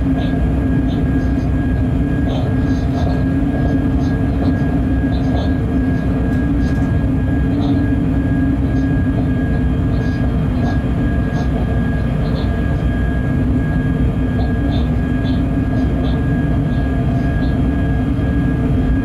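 Freight train running steadily at speed, heard from the locomotive cab: a continuous rumble of wheels on rail with a steady electric hum, and faint short high-pitched ticks here and there.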